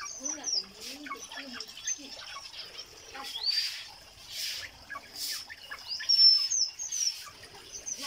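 Aviary birds chirping and twittering: many short high chirps and whistled notes, some sliding in pitch. Several harsh, rasping bursts come between about three and five and a half seconds in.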